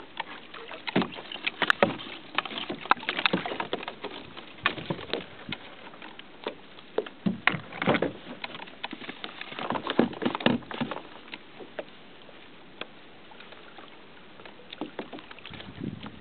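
Small waves slapping and lapping against a plastic sit-on-top kayak hull in irregular splashes and light knocks, easing off for a few seconds past the middle.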